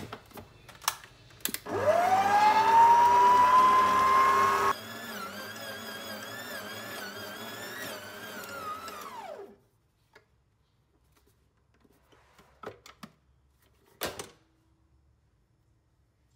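Stand mixer with a dough hook kneading bread dough: a few clicks as it is set going, then the motor starts with a rising whine and runs loud. After a sudden drop in level it runs on with a wavering pitch, then winds down when switched off, followed by a few faint clicks and knocks.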